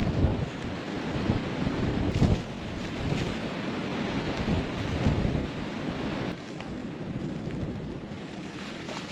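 Blizzard wind blowing in strong gusts, rumbling on the microphone; it eases somewhat about six seconds in.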